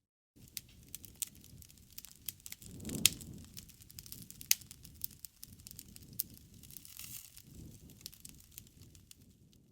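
Wood fire burning: a steady run of crackles and sharp pops over the low rumble of the flames, with the loudest pop about three seconds in and another about a second and a half later.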